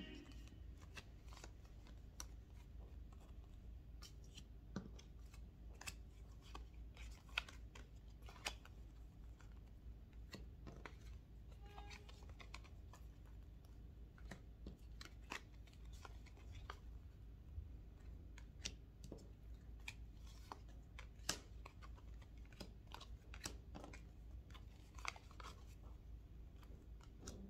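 Faint, irregular clicks and light taps of tarot cards being handled, over a low steady hum.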